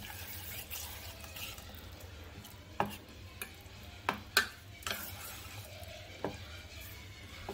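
A metal spoon stirring thick gram-flour pakora batter in a stainless steel pot, making a wet, squelching scrape as water is worked in to get the batter smooth. Several sharp clinks come from the spoon hitting the side of the pot, most of them in the middle of the stretch.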